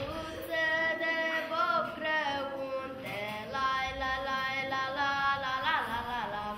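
A girl singing a slow melody solo and unaccompanied, holding long notes in a few phrases, with a wavering turn near the end.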